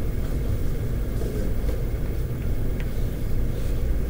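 Steady low room rumble, with a couple of faint taps of chalk on a blackboard as something short is written.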